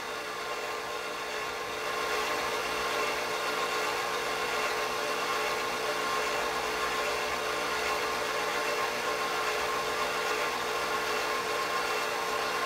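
Sherline mini mill running steadily while its motor-driven table traverses the shaft back to the starting end, a steady mechanical hum and whine with no cutting. It gets slightly louder about 2 seconds in.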